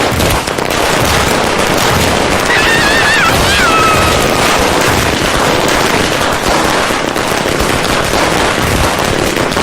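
Long, unbroken rapid crackle of firecrackers going off in quick succession, like a long string of Diwali crackers. A wavering whistle slides down in pitch about two and a half seconds in.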